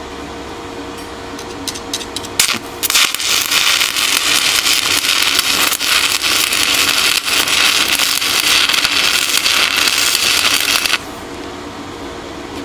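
Stick-welding arc from an HTP Inverarc 160 PLUS inverter welder on high-strength steel: a few short crackles as the rod is struck, then a steady crackling sizzle for about eight seconds that cuts off abruptly when the arc is broken.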